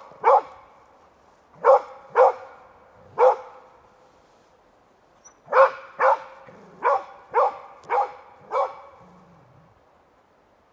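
Hunting dog barking at a wild boar, about ten sharp barks in irregular runs with a gap of a couple of seconds in the middle: bay-barking to hold the boar in place.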